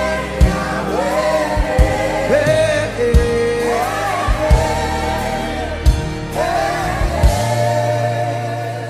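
Gospel worship music: voices singing a wavering melody without clear words over a band with bass and regular kick-drum beats.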